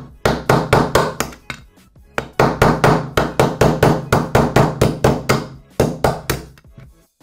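Small hammer tapping rapidly, about five blows a second, on an old bearing set on top of a new crankshaft bearing, driving the new bearing into the heated aluminium crankcase of a Vittorazi Moster engine. The tapping pauses briefly about two seconds in, then runs on.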